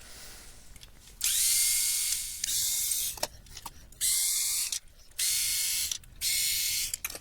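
Small cordless electric screwdriver running in four short bursts of about a second each, whirring up to speed each time as it backs out the small screws holding the front cover of a USB device.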